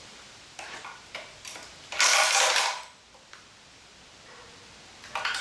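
Hand tools working on metal engine bolts: a series of sharp clicks and ratcheting, with a loud, hissy burst lasting under a second about two seconds in.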